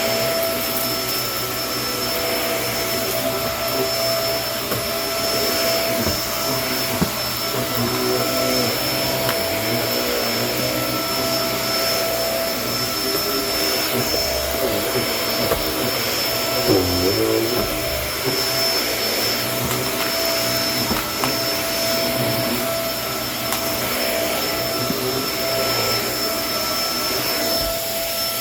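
Kenmore vacuum cleaner running steadily with a constant high motor whine. Lower tones in the hum waver up and down in pitch through the middle, with one sharp dip about two-thirds of the way in.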